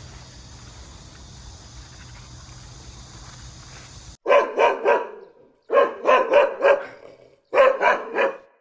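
Dog barking in three quick bursts of about four or five barks each, starting abruptly about four seconds in after a steady low background noise.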